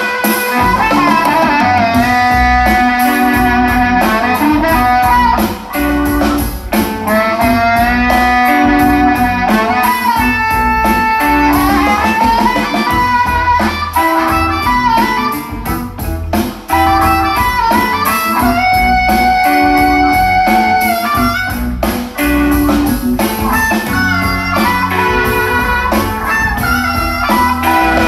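Guitar-led music with a strong bass line and a steady beat, played back through a Yamaha DSP-AX430 AV receiver in 5-channel stereo mode, with NX-230P satellite speakers and a YST-SW005 subwoofer.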